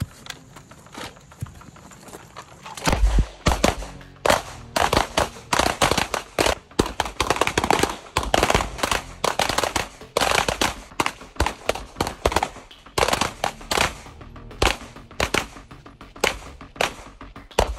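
Pistol fire from a line of shooters firing together: many sharp shots, overlapping and in uneven clusters, beginning about three seconds in and going on nearly to the end.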